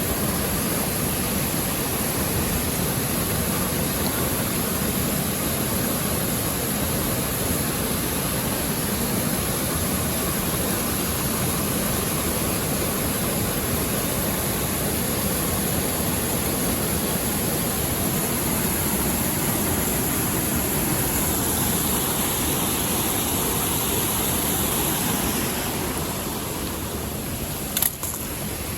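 Mountain stream water rushing steadily, with a single sharp click near the end.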